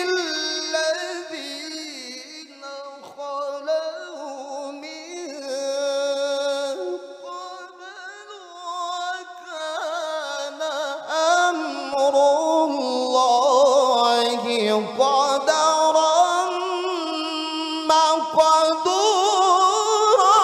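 A man's voice in melodic Quran recitation (tilawah), drawn-out ornamented notes amplified through a handheld microphone, climbing higher and louder in the second half of the phrase.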